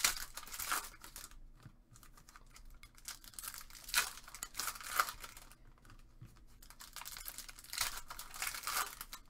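Foil wrappers of Topps Finest soccer trading-card packs being torn open and crinkled by hand. The tearing and rustling come in three bouts: at the start, about four to five seconds in, and near the end.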